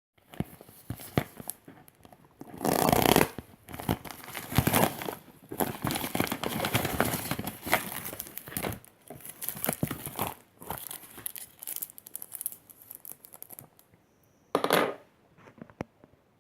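Product packaging being handled and torn open: irregular crinkling and tearing with sharp clicks. The loudest tear comes about three seconds in, with a short burst near the end.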